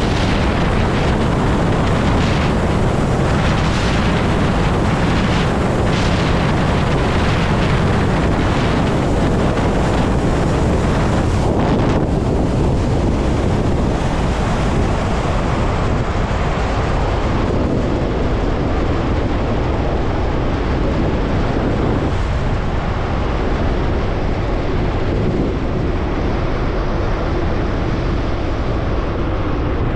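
Wind rushing over the microphone, with tyre and road noise from a Zero electric motorcycle riding at highway speed. The hiss softens after about twelve seconds as the bike slows off the interstate.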